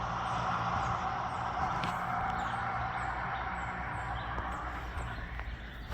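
Road traffic on a two-lane highway: a steady tyre hiss that slowly fades, with faint high bird chirps repeating over it.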